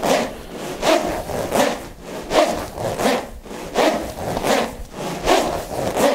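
A pair of smovey rings being swung crosswise, the steel balls inside the spiral plastic rings rolling around them with a rhythmic rushing rattle. It surges about once every three quarters of a second, with each swing.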